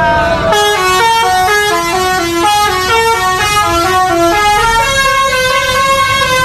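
Bus 'telolet' musical horn playing a fast tune. After a short rising glide at the start, clear notes step up and down about four times a second, and some longer held notes come near the end.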